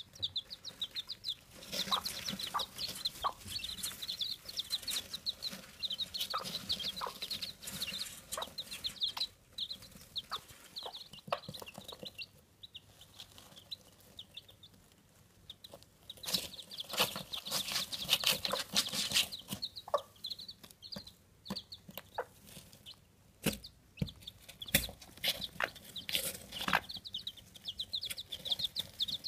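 Japanese bantam (Chabo) chicks peeping in quick runs of short, high chirps, with rustling and scratching in the straw. The peeping comes in stretches, busiest in the first third, around the middle and near the end.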